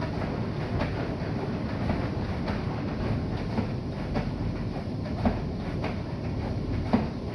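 Bosch i-Dos WGG154A10 front-loading washing machine running, a steady low rumble of the turning drum with a few short knocks, three times over the stretch.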